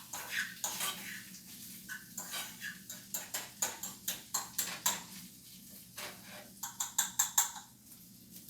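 Kitchen utensils clinking and scraping against dishes or a pan in a long run of quick, sharp clinks, with a cluster of louder ones near the end.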